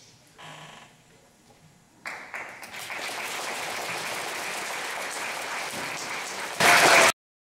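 Audience applauding, starting about two seconds in, growing suddenly louder near the end and then cutting off abruptly.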